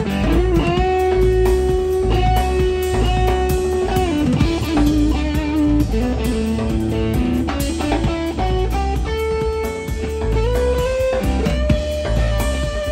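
Live rock trio: a Stratocaster-style electric guitar plays a lead with long sustained, bent notes over electric bass and drum kit. The guitar slides down about four seconds in and bends up again near eleven seconds.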